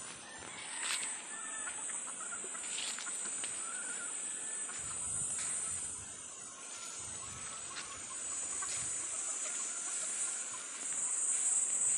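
Roosters clucking and calling, with short wavy calls coming mostly in the first half, over a steady high-pitched insect buzz.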